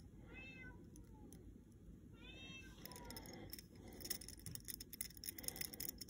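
A cat meowing twice, faintly, about two seconds apart. Light metal ticks from small hand tools follow in the second half.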